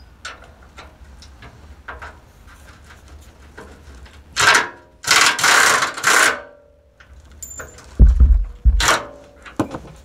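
Air tool on a hose run in three short, loud bursts against the steel chassis, with heavy low thuds near the end.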